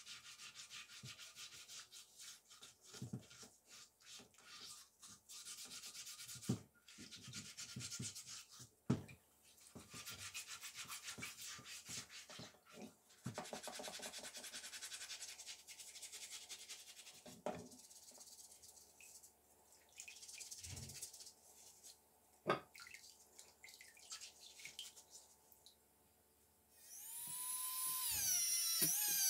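Quick scrubbing strokes of a green scrubber on the rusty cast-iron iron's body and handle under NaOH solution, in long runs broken by short pauses and a few sharp knocks. Near the end, a small handheld rotary tool with a wire brush starts up with a rising whine against the iron.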